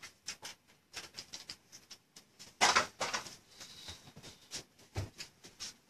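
Scattered light clicks and taps at an irregular pace, with a short rustle about two and a half seconds in.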